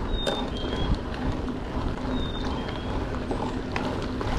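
Wind rumbling on the microphone and rolling noise while riding a loaded bicycle, steady throughout, with a few faint short high chirps.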